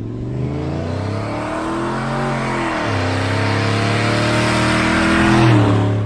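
Turbocharged Ford F-150 engine accelerating hard, its note climbing steadily, dropping at a gear change about three seconds in, then climbing again to its loudest near the end.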